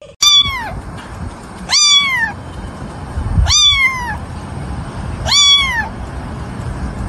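Kitten meowing loudly, four high calls spaced about a second and a half to two seconds apart, each rising and then falling in pitch, over a low rumble.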